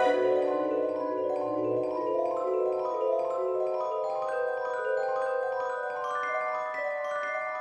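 Background music: an instrumental tune of bell-like struck notes that climb step by step in pitch through the second half.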